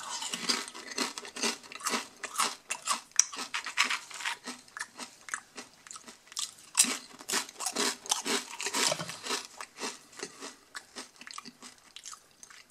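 Someone chewing crisp potato chips: a dense run of sharp, very crunchy bites and chews, thinning out and fading near the end.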